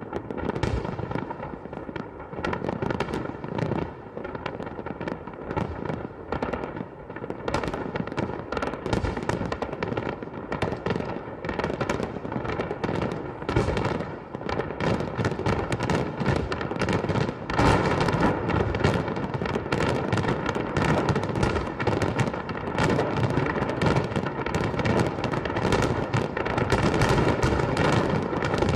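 Fireworks going off in a rapid, dense barrage of bangs and crackles that grows louder about two-thirds of the way through.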